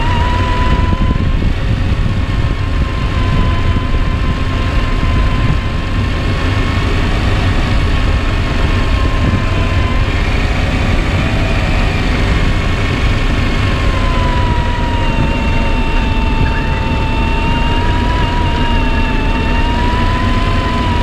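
RC4WD Desert Runner 1/10 scale RC truck running: a steady electric drivetrain whine that dips slightly about two-thirds through and climbs again near the end, over a continuous low rumble.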